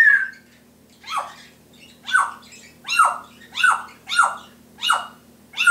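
Timneh African grey parrot calling: one rising-and-falling call, then seven short harsh calls in quick succession, each dropping in pitch.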